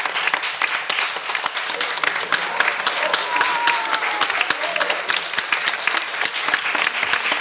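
Audience applauding steadily, a dense stream of hand claps that neither builds nor fades.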